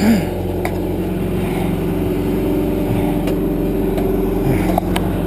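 John Deere backhoe's diesel engine running steadily while it works, with a few sharp clanks.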